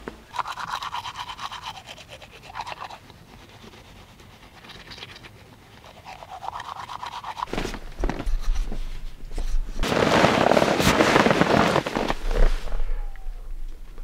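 Nylon sleeping bags and clothing rustling and scratching close to the microphone as people shift about, loudest for a few seconds near the end, with a few dull knocks just before.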